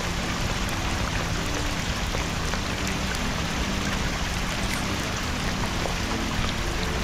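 Steady hiss of rain, with faint low held notes underneath.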